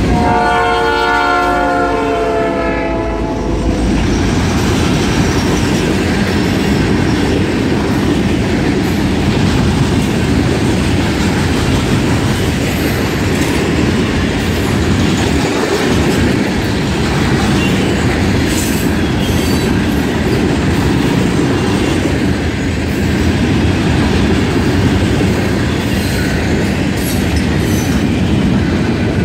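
Freight train rolling past close by: a train horn sounds for the first few seconds and stops, then the steady rumble and clatter of freight cars, wheels clicking over the rail joints, with brief high wheel squeals now and then.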